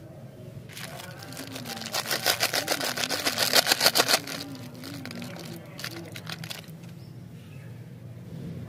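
Plastic candy wrapper crinkling loudly in the hands and being torn open, a dense crackle lasting about two seconds; a few lighter rustles follow.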